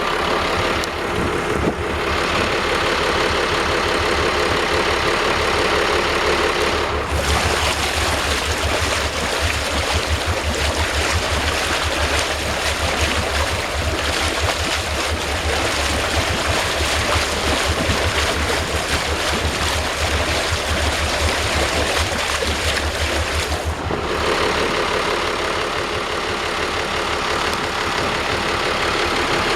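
Small boat's engine running steadily. About seven seconds in it runs harder, louder and rougher with a heavier low throb, then about 24 seconds in it settles back to its earlier steadier running.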